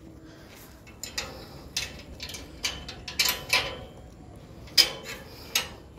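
Irregular light clicks and clinks, about ten scattered over a few seconds, as a leashed golden retriever puppy moves about. The sharpest comes a little under five seconds in.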